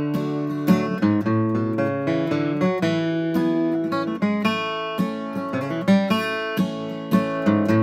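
Steel-string acoustic guitar flatpicked, a quick run of sharply picked notes with some strummed chords.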